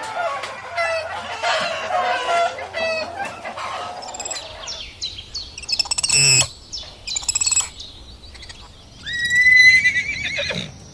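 Chickens clucking and calling over one another, then scattered short, high chirps, and a louder, long wavering call about nine seconds in.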